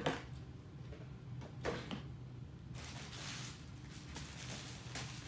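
Packaging being handled: a couple of sharp knocks of cardboard and camera gear, then a second of crinkling from a plastic bag and bubble wrap, over a low steady hum.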